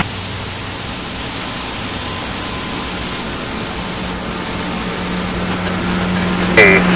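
Steady radio static hiss with a low hum and a faint steady tone underneath, the open carrier of a radio transmission between calls. A voice over the radio breaks in near the end.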